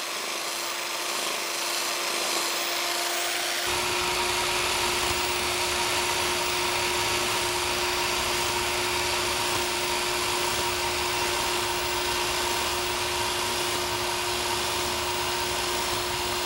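Biax electric power scraper running, its blade reciprocating against the cast-iron compound slide to cut a crosshatch pattern. The sound is a steady hum with a scraping hiss, and it gets fuller about four seconds in.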